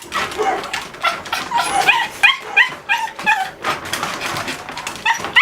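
Dogs whining and yelping in excited greeting: a quick run of short, high-pitched, rising cries, about two or three a second, with scattered scuffling knocks.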